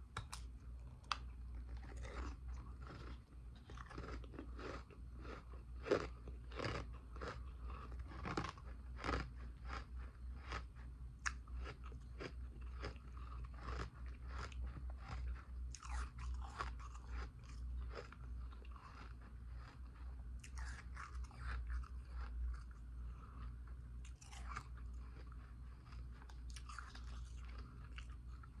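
Ice being bitten and chewed close to the microphone: a dense run of sharp crunches through the first half, then sparser crunches in clusters.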